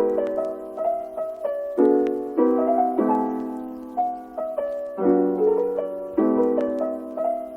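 Soft jazz piano background music: gentle chords struck every second or so, each left to fade.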